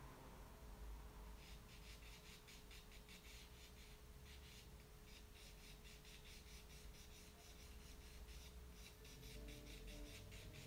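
Faint pencil scratching on paper: quick, short repeated strokes, several a second, starting about a second and a half in, as fine hair strands are drawn.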